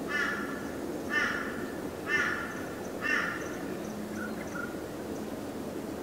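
A crow calling four times, about a second apart, over a steady low rumble; two faint short notes from another bird follow.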